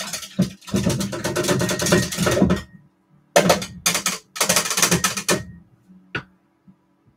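Rapid rattling clicks in three runs of a second or two each, over a faint low steady drone.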